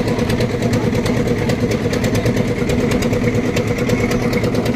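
Lift-type concrete mixer machine's engine running steadily, with a regular ticking clatter over the hum.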